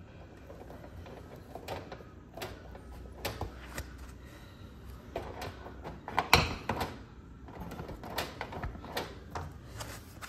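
Plastic wire nuts twisted onto wire splices and the wires pushed back into a baseboard heater's sheet-metal junction box: scattered clicks, scrapes and rustles, with the loudest knock about six seconds in.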